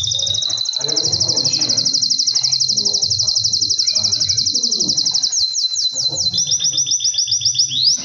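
Canary singing: a long, fast trill of rapidly repeated high notes, breaking about five seconds in into a few rising sweeps, then another rapid trill near the end.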